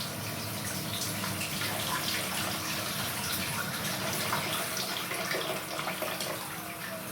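Water running from the bath spout of a TOTO wall-mounted thermostatic shower mixer, with a steady low hum underneath: the abnormal noise the mixer has been making.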